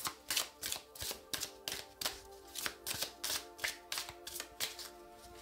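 Soft background music with a quick, uneven run of sharp clicks and taps over it, about four a second, thinning out near the end.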